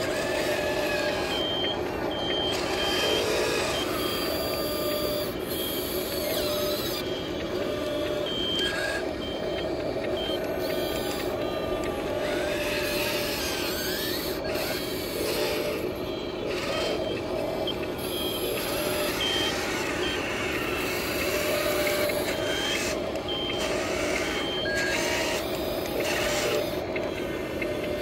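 Remote-control toy construction vehicles working in sand: a steady whir of their small electric motors, broken by several bursts of short, high, evenly spaced reversing beeps.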